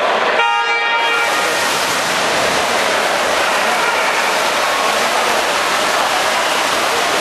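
An electronic race-start beep sounds for about half a second near the start, sending off a backstroke heat; then a steady loud rush of splashing from the swimmers fills the pool hall.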